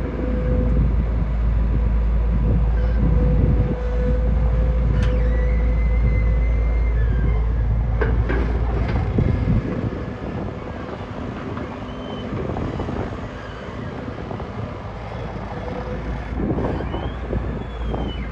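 Heavy earthmoving machinery running: a deep diesel rumble with a steady whine and a few sharp metallic clanks. The deep rumble drops away about halfway through.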